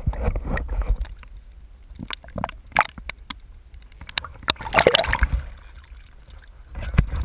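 Water sloshing and bubbling against a GoPro's underwater housing, with scattered clicks, as the camera is pulled up through the water with a hooked snapper bluefish. A louder splash comes about five seconds in as it breaks the surface.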